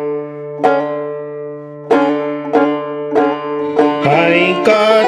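Clawhammer banjo sounding a few strummed chords, each left to ring. About four seconds in, a fiddle joins in, bowing a wavering melody over the banjo.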